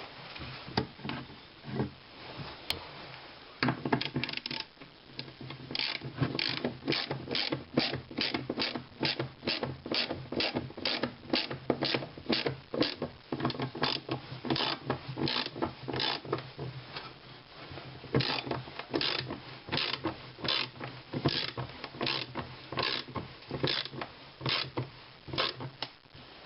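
Ratchet wrench clicking in steady back-and-forth strokes, nearly two a second, as a bolt is worked on the lathe, with short pauses about 5 and 17 seconds in.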